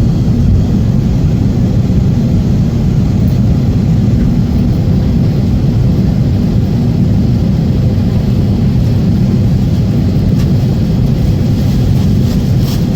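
Steady low rumble inside a jet airliner's cabin as it taxis after landing, engine and airflow noise, with a few faint clicks near the end.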